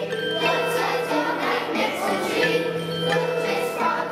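A children's ensemble of Orff xylophones playing a tune of quickly struck, ringing wooden-bar notes over a steady low note, with a children's choir singing along.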